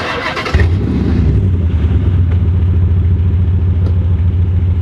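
Chrysler 300C Hemi V8 catching about half a second in after a brief burst of noise, then running steadily with a loud, fast-pulsing rumble. The sound is an exhaust leak from a broken flex pipe.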